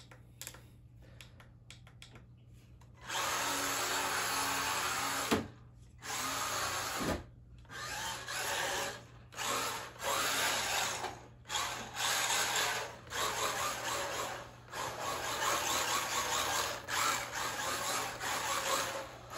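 Small brushed 380 electric motor and gears of a 1/16 RC drift car whining under throttle. It starts a few seconds in with one longer run, then comes in repeated bursts of about a second, with short pauses as the throttle is let off.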